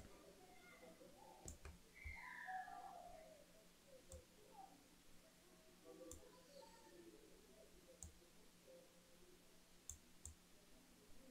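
Faint, sharp computer mouse clicks, about six of them a couple of seconds apart, two close together near the end, over quiet room tone.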